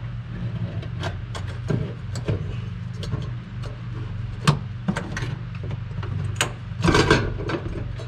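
Scattered clicks, taps and clunks of hardware being handled as a double-pump fuel pump assembly is worked down into the fuel tank opening, with a denser clatter about seven seconds in. A steady low hum runs underneath.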